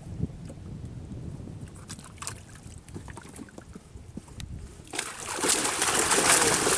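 Wind rumbling on the microphone with scattered light knocks on a small boat. About five seconds in, a sudden loud rush of splashing water begins.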